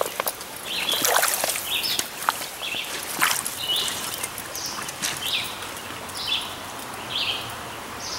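A songbird repeating a short, high call about once a second over the steady rush of a shallow stream, with a few louder splashes of wading steps in the water.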